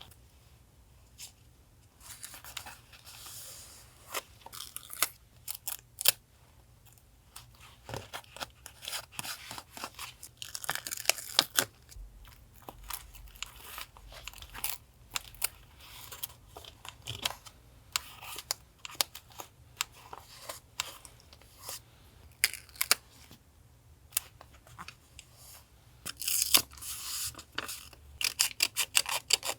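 Paper being torn and cut with scissors: scattered snips, rustles and taps, with longer tearing strokes about ten seconds in and near the end.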